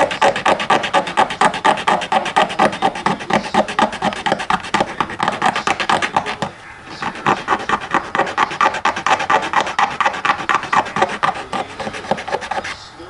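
Hand filing with rapid back-and-forth rasping strokes, about six or seven a second. The strokes stop briefly about six and a half seconds in, then carry on.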